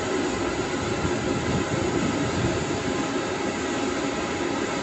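Jet airliner engines running steadily at low thrust, a constant rumble with a faint whine over it.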